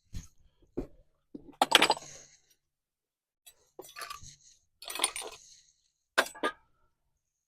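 Metallic clinks and clatter: about six separate knocks with a short ring after each, the loudest about two seconds in.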